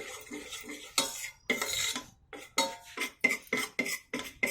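A spoon stirring and scraping gram flour (besan) roasting in ghee in a pan, in a run of short scrapes that quicken to about four a second in the second half.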